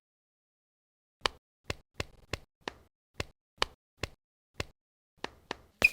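A series of about a dozen sharp knocks or taps, unevenly spaced at roughly two to three a second, ending in a louder knock with a brief ringing tone.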